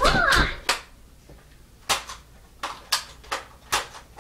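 A brief yell at the start, then about six sharp, irregular clicks and knocks over the next three seconds, typical of Nerf blasters firing and foam darts striking.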